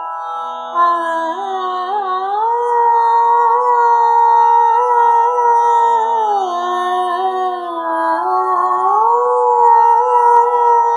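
Slow, unmetred opening of a Bengali song: a held melody line sliding smoothly from one long note to the next over sustained drone notes.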